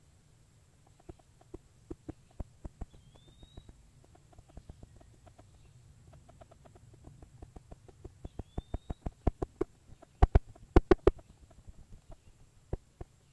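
A run of sharp, irregular knocks, a few widely spaced at first, then quickening to several a second, with the loudest cluster about ten seconds in. The uploader presents them as sasquatch drumming. A bird's short rising whistle repeats every few seconds over a faint steady high tone.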